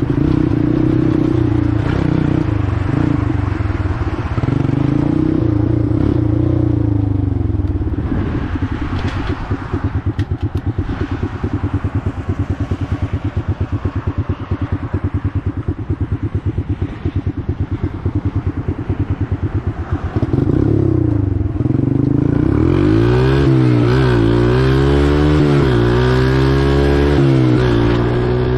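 Four-wheeler (ATV) engine running steadily, then dropping to a slow chugging idle for a stretch. About two-thirds of the way in it accelerates, its pitch climbing and falling back several times as it shifts up through the gears.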